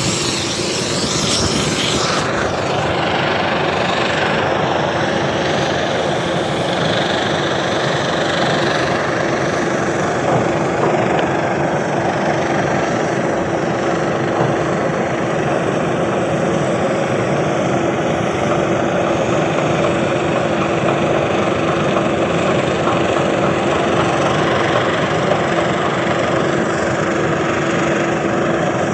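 Tanker ship's machinery running with a loud, steady drone and a constant hum.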